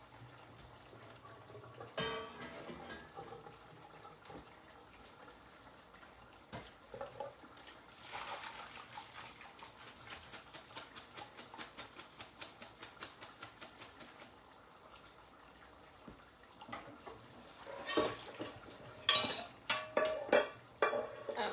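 Pots and pans handled at the stove and sink, with water sounds, as cooked fresh pasta is drained and moved into a pan of sauce. Midway there is a run of quick, even clicks, and near the end loud clattering knocks of metal pans and utensils.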